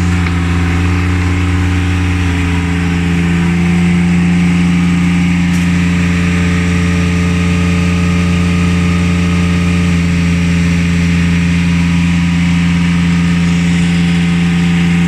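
An engine running at a steady speed, a constant low hum with no change in pitch.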